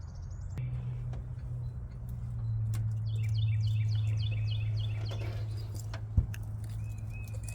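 A bird calling a quick run of about eight repeated chirps over a steady low hum, with one sharp knock about six seconds in and a thin steady whistle near the end.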